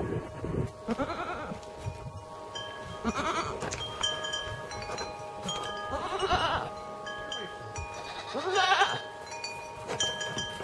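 Ten-day-old goat kids bleating: four short, quavering bleats a few seconds apart. Several steady ringing tones, like a wind chime, hang behind them.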